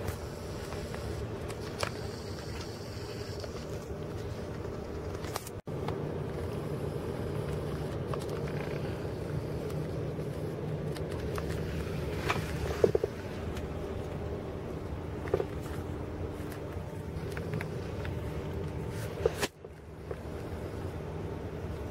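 Engine and road-traffic noise heard from inside a car: a steady low hum with a few brief clicks and knocks.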